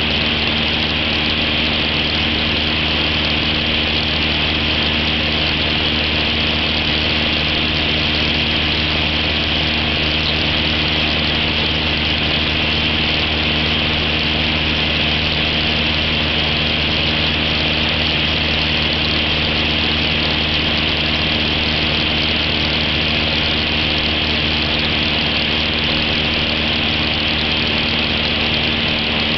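Cessna 172's piston engine and propeller droning steadily in flight, with a constant hiss of rushing air over it.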